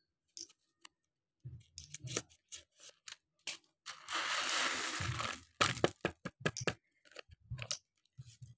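A paper seed packet of watermelon seeds is handled and emptied onto a table. First come crinkles and light clicks. About four seconds in, a rushing patter of a little over a second as the seeds pour out, then scattered clicks as the seeds settle and are spread by hand.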